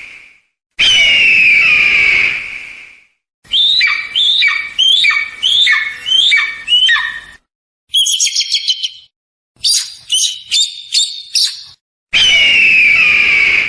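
Eagle calls: a long, hoarse, descending scream, then a run of about seven short downward-sliding calls, then two bouts of rapid high-pitched chattering, and the long scream again near the end, with brief silences between the calls.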